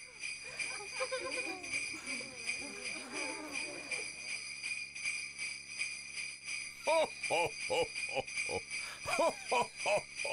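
Jingle bells ringing steadily. From about seven seconds in, short rising-and-falling calls come over them, about two a second.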